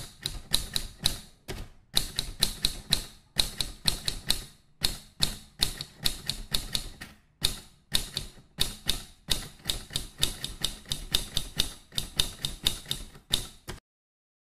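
Typing sound effect: rapid typewriter-style key clicks, about five a second, in runs with brief pauses, stopping abruptly near the end.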